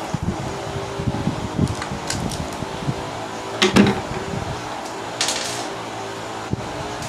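Electric fan running steadily, with scattered small clicks and knocks of handling. The loudest is a clatter nearly four seconds in.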